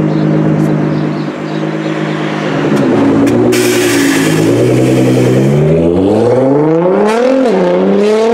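Tuned Nissan GT-R R35 twin-turbo V6 with a loud aftermarket exhaust, running at low revs and then accelerating away. The exhaust note rises in pitch, drops briefly about seven seconds in at a gear change, and climbs again. There is a short hiss about three and a half seconds in.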